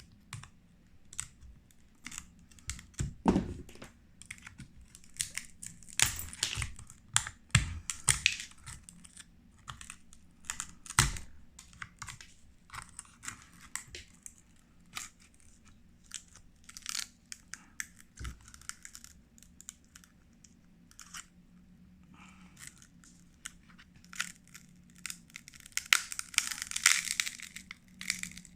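Cracked phone back glass, already loosened by a laser machine, being broken up and picked off: irregular sharp clicks and crackles of glass fragments snapping and scraping. The crackling grows busier near the end.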